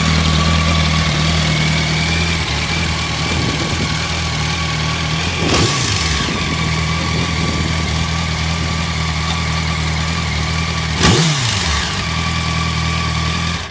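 Yamaha YZF-R1 (RN20) inline-four engine idling steadily through its exhaust, the idle even and in good order. Two quick throttle blips come about five and a half and eleven seconds in, each rising and falling back to idle.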